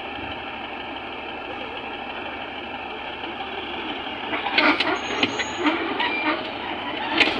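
Heavy diesel machinery running steadily, joined about four and a half seconds in by a series of sharp clanks and knocks with brief high squeaks.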